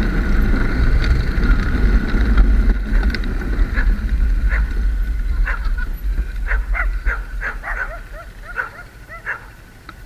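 A low engine rumble fades away over the first several seconds. A dog then barks and yips repeatedly, the barks coming thick and fast in the second half.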